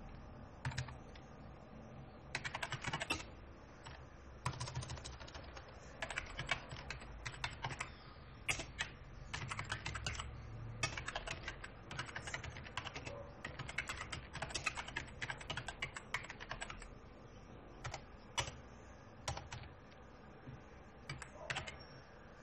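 Typing on a computer keyboard: quick runs of key clicks with short pauses between them, thinning to a few single keystrokes near the end.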